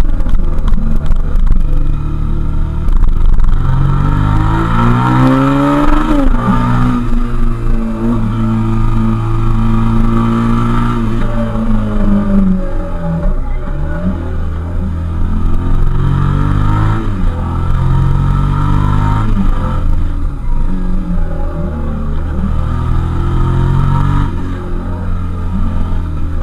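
Suzuki SV650S's 645 cc V-twin engine on the move, heard from the bike itself. Its pitch climbs under acceleration, holds, then falls off several times as the throttle opens and closes through the bends.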